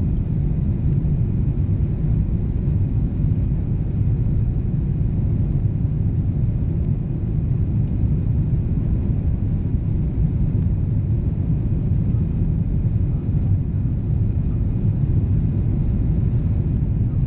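Steady, low rumble of a Boeing 777's jet engines heard inside the passenger cabin, with no change in pitch or level.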